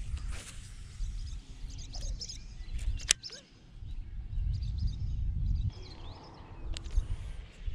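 Low rumble of wind and handling noise on the microphone, broken by two sharp clicks, one about three seconds in and one near the end, with faint bird chirps in the background.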